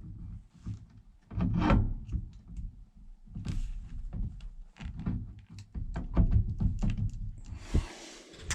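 Steering column parts being fitted by hand: a series of irregular knocks and clunks with rubbing, and a short scraping rustle near the end.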